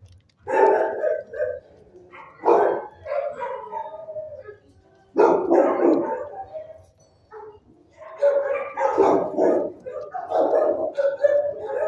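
Dogs barking and howling in several bouts, with short pauses between.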